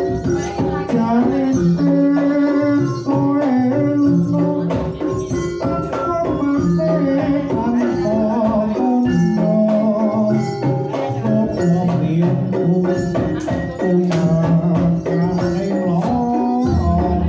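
Live jaranan gamelan music: held pitched notes and a moving melody over steady drum and percussion strokes.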